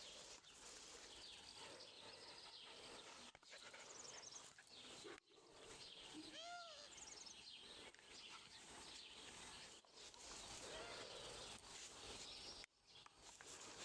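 Quiet garden ambience: a faint steady hiss with a few quick bird chirps, and one short high call that rises and falls about halfway through.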